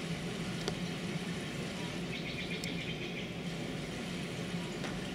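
Quiet stage room tone with a steady low hum; about two seconds in, a short run of rapid high crackling ticks lasts just over a second.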